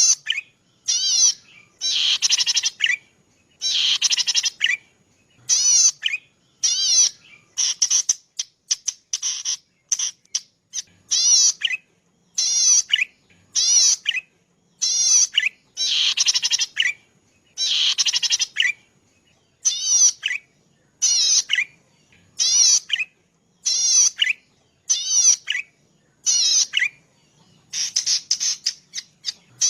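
Cici padi (a small rice-field warbler) singing: a steady series of short, rapidly wavering, high buzzy trills about once a second, some held for around a second, with short gaps between.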